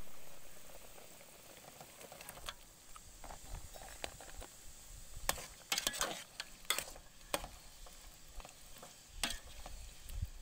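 Broth bubbling at the boil in an aluminium pot, then a metal ladle clinking and scraping against the pot as chunks of papaya are stirred into it. The clinks come thickest a little past the middle, with one more near the end.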